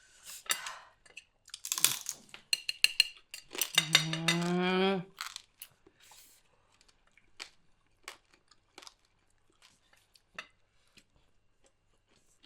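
Cutlery clinking and scraping against a plate, with a hummed "mm" of enjoyment about four seconds in. After that come scattered small crunchy clicks of eating crispy deep-fried pork knuckle.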